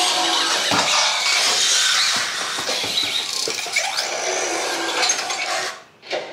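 Robosen self-transforming Optimus Prime robot's servo motors whirring, with dense clicking, as it converts itself from robot into truck mode; the sound stops suddenly near the end.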